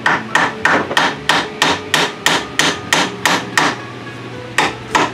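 Hammer tapping on the head of a stuck exhaust valve in a 1942 Briggs & Stratton Model A engine, about three sharp metal taps a second, then a short pause and two more near the end: the seized valve being worked free.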